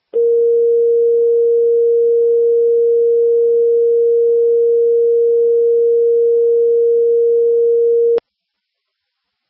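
Fire dispatch alert tone over a scanner radio feed: one steady tone held for about eight seconds, then cut off suddenly with a click, the signal that comes before a dispatch call.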